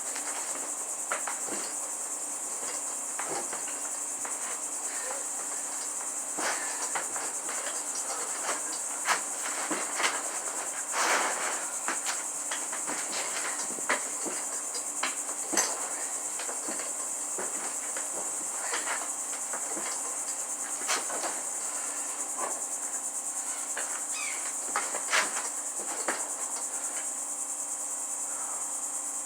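Steady high-pitched chirring of insects, typical of crickets, with scattered short clicks and knocks throughout.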